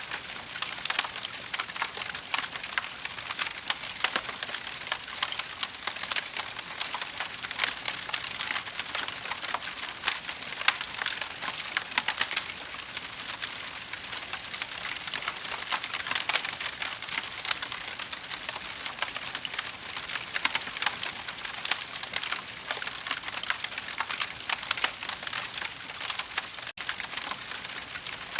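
Fire crackling: a steady, dense stream of small pops and snaps.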